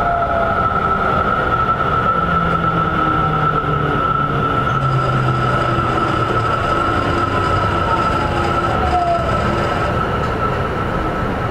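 Tokyo Metro 10000 series electric train (Mitsubishi IGBT-VVVF) running, heard from inside the car: steady wheel and track rumble with a high steady whine, and lower motor tones that fall in pitch through the second half as the train's speed drops.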